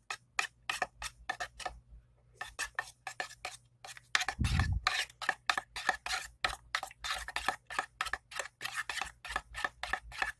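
Spoon stirring clear glue and metallic acrylic paint in a bowl, with quick, even scraping strokes about four a second. The strokes pause briefly about two seconds in, and there is one low bump a little after four seconds.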